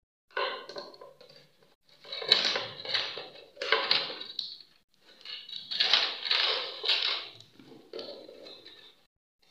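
String being pulled tight and knotted around bamboo slats, with the slats rattling and scraping under the hands. The noise comes in several irregular bursts.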